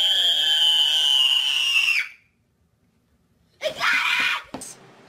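A child's high-pitched scream of excitement, held for about two seconds before cutting off suddenly. After a short gap a second, shorter and hoarser shout follows.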